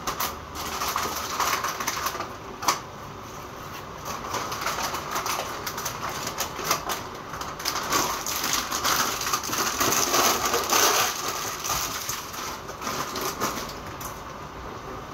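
Hands working at a steel kitchen sink, with a run of rapid scraping strokes and small clicks that are busiest around ten seconds in.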